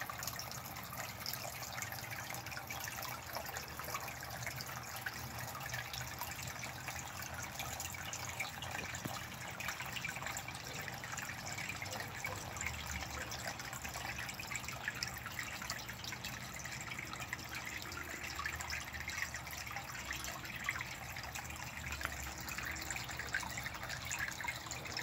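Water steadily splashing and trickling as it pours into a small garden fish pond, a constant patter of small drips over the running flow.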